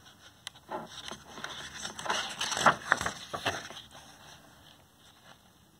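Paper crinkling and rustling as a book page is turned, a run of short crackles and taps over about three seconds that dies away near the end.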